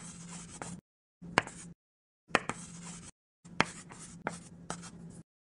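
Chalk writing on a blackboard: four short spurts of scratching, each beginning with a sharp tap of the chalk, with brief pauses between strokes.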